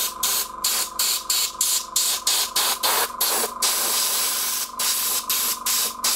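Compressed air from a compressor nozzle hissing in rapid short blasts, about three or four a second, with one longer blast a little past halfway. It is flushing isopropyl alcohol through a valve radio's tuning mechanism to clean out excess WD-40.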